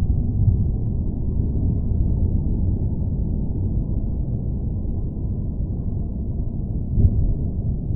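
Continuous deep, low rumbling noise of an earthquake-rumble ambience track, with small swells in loudness, one a little before the end.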